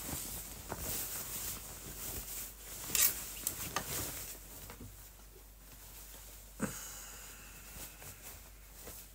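Handling noises at a sewing table: fabric rustling and scattered light clicks and taps. About two-thirds of the way in there is a sharper click, then a faint steady high tone.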